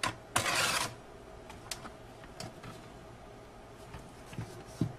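Commodore LCD circuit boards being handled and tilted up out of the plastic bottom case. There is a brief scraping rustle about half a second in, then a few light clicks and taps.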